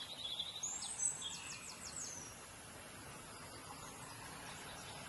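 Birds calling in plantation undergrowth: a quick trill in the first second, then a run of high, rapid notes until about two seconds in, followed by a steady outdoor hiss with insects.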